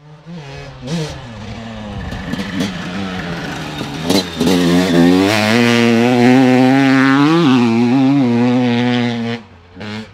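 Honda CR250 single-cylinder two-stroke motocross engine revving hard. Its pitch climbs about four seconds in and holds high, dips briefly once, then drops away near the end.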